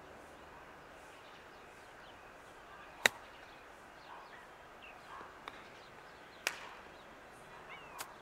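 Golf wedge striking balls on short chip shots: a sharp click about three seconds in, the loudest sound, and another about six and a half seconds in, with smaller clicks between. Birds chirp faintly.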